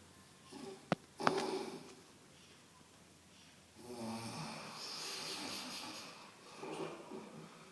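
A man snoring in his sleep. A sudden, louder snort-like noise comes about a second in, then one long snore of about two seconds at the four-second mark, and a shorter one near the end.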